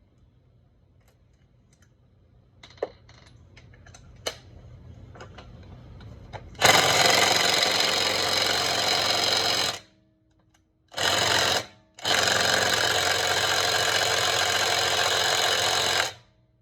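A power tool run in three bursts that start and stop suddenly: about three seconds, a short blip, then about four seconds. Before it come a few light clicks and taps of tools being handled.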